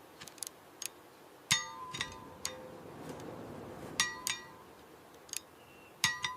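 Metal tools clinking against metal during a tractor repair: short ringing metallic strikes, mostly in pairs, about a second and a half in, at about four seconds and again near the end.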